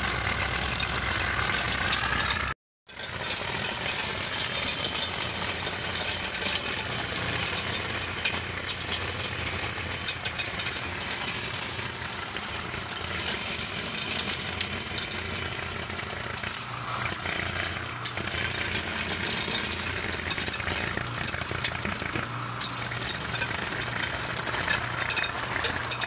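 Grass cutter driven by an old washing machine motor, spinning a nylon trimmer line: a low steady motor hum under a dense crackling hiss as the line cuts through grass. The sound breaks off for a moment about three seconds in.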